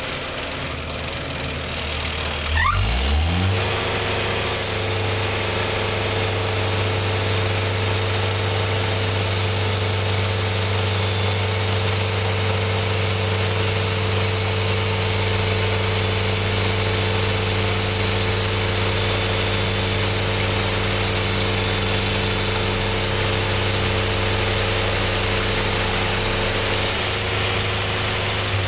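Wood-Mizer LT40 portable band sawmill: its engine revs up about two and a half seconds in. It then runs steadily under load while the band blade saws along the log, cutting off a large slab.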